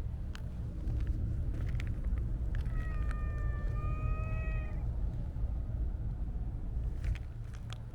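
Siamese-mix cat giving one long meow about three seconds in, lasting about two seconds, over a steady low background rumble with a few faint clicks.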